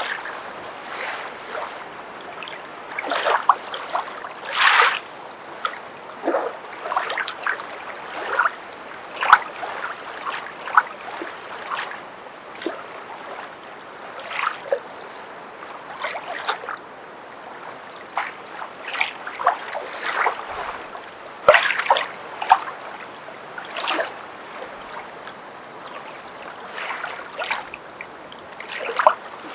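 Someone walking through water, each step a splash, at an uneven pace of roughly one a second, over a faint steady water hiss.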